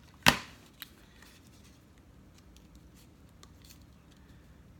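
A single sharp knock on the work table about a third of a second in, then a faint click and a few quiet ticks of handling, with little else but room hum.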